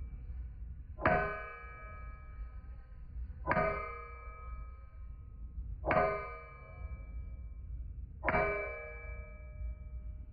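Hammer striking hot steel on an anvil, four slow, evenly spaced blows about two and a half seconds apart, each ringing on for a while.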